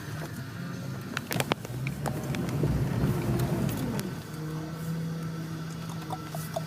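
Jeep engine revving up, loudest about three seconds in, then dropping back to a steady idle.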